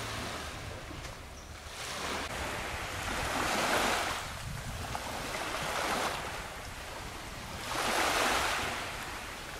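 Small waves washing up on the shore, swelling and fading about every two seconds.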